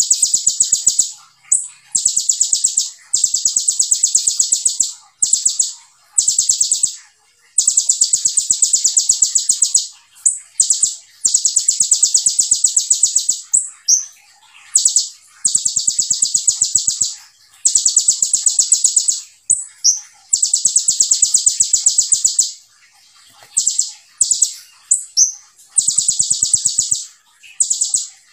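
Male Van Hasselt's sunbird (kolibri ninja) singing: loud, high, rapid trilled phrases of one to three seconds, repeated over and over with short pauses between them.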